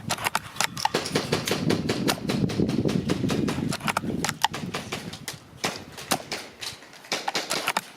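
Strong gusty wind buffeting the microphone, with a low rumble for the first four or five seconds, and many sharp clicks and rattles throughout.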